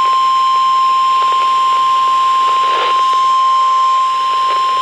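NOAA Weather Radio 1050 Hz warning alarm tone: one steady, unbroken pitch over radio hiss, the attention signal that comes before a severe thunderstorm warning broadcast.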